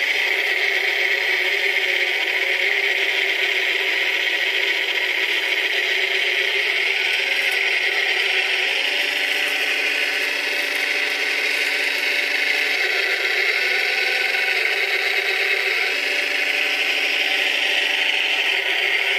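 Caterpillar 966 wheel loader's diesel engine running with a steady mechanical rattle while it works its bucket to backfill a trench. The engine note shifts a few times about halfway through.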